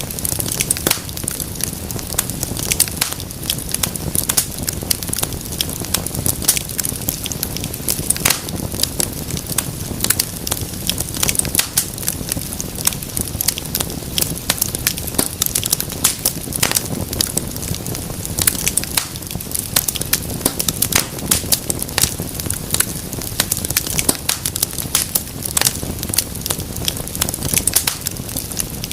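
Wood fire burning with dense, irregular crackling and sharp pops over a steady low rumble of the flames.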